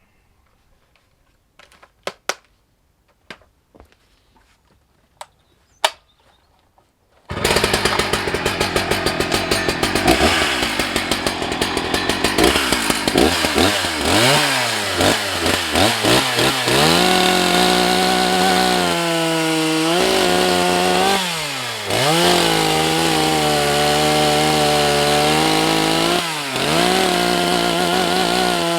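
A few light clicks, then about seven seconds in a Husqvarna chainsaw comes in loud. It revs up and down, then runs at full throttle through a cut, its pitch dipping briefly under load a few times before climbing back.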